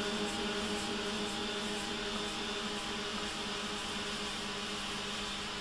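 Soft background music between sung lines: a held chord that slowly fades, over a steady hiss.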